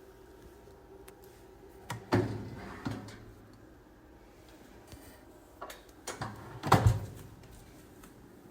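Several knocks and clunks from the air fryer toaster oven being handled, most likely its door and pan. There is a group about two to three seconds in and the loudest group near the end.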